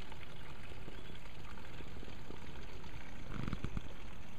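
Water trickling steadily, with a few faint ticks about three and a half seconds in.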